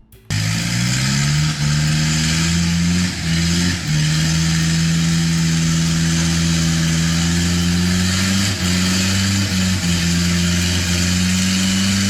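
Heavy truck engine running hard under load. It starts abruptly and its pitch rises slowly and steadily, with a few brief dips.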